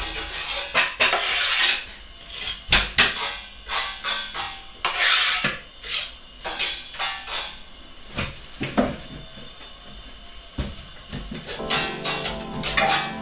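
Steel bricklaying trowel scraping and knocking against brickwork while packing mortar in around a steel beam and padstone: a run of irregular sharp scrapes and clinks. Background music comes in near the end.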